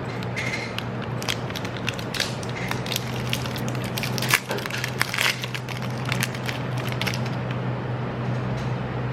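Plastic wrapper of a peanut crunch chocolate bar crinkling and crackling irregularly as it is pulled and torn open by hand, with the sharpest crackles about four and five seconds in; the wrapper is tight and hard to open.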